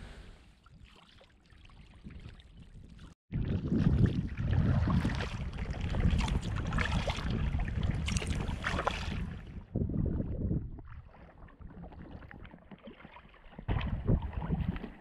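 Kayak out on open water: wind rushing across the microphone with water lapping and splashing at the hull. It is faint for the first few seconds, cuts in loud about three seconds in, eases off about ten seconds in and rises again near the end.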